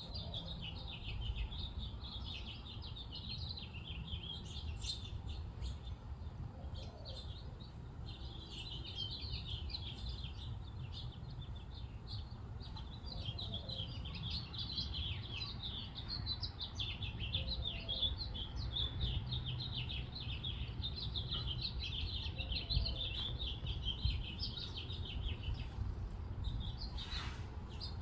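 A group of small birds chirping busily, many short chirps overlapping in a continuous chatter that thins out near the end, over a low steady rumble.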